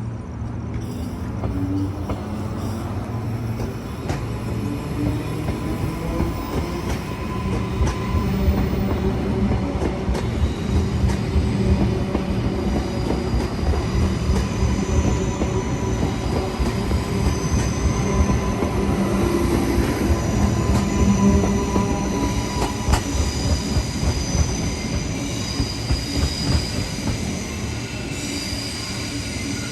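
Queensland Rail electric suburban train moving through the station: a steady rumble that grows louder about eight seconds in, with high-pitched wheel squeal on the rails in the second half.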